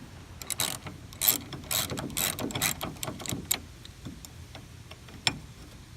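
Hand ratchet clicking as it works a T50 Torx bit on door-hinge bolts. There are repeated strokes about two a second for the first three and a half seconds, then a few single clicks.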